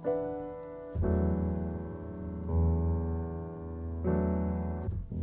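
Instrumental passage of a neo-soul song between vocal lines: piano chords, each held for about a second and a half before the next, with a low bass coming in about a second in.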